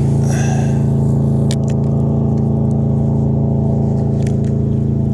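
A small boat motor drones steadily at constant speed. A brief higher whir comes about half a second in, and a few sharp clicks follow.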